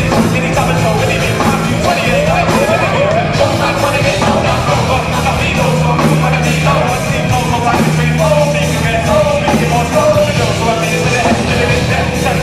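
Loud band music with a rock sound: long held bass notes under bending melodic lines.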